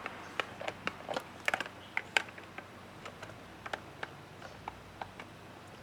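Plastic seat wiring-harness connectors being handled and pushed together: a scatter of sharp clicks and ticks, busiest in the first half and thinning out after.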